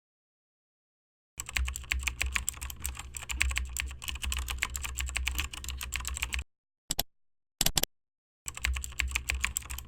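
Typing on a computer keyboard: a fast, dense run of key clicks starting about a second and a half in and breaking off near six and a half seconds. Two short bursts of keystrokes follow, then fast typing resumes near the end.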